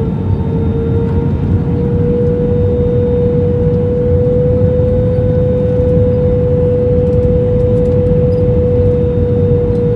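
Cabin noise of a Lufthansa Airbus A321 in flight: a steady, loud rumble of airflow and engines, with a constant engine whine that rises slightly over the first second and a half and then holds level.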